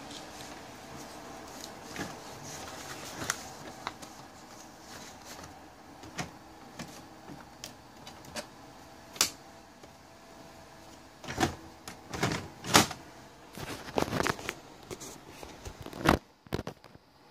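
Epson WF-2750 inkjet printer running its internal mechanism: a faint steady motor whir, then a string of sharp clicks and clunks in the second half.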